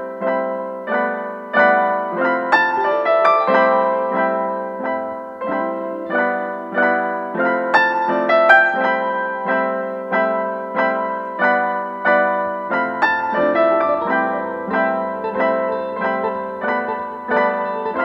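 Background piano music: evenly repeated notes at a steady pulse, with a low bass line joining about two-thirds of the way through.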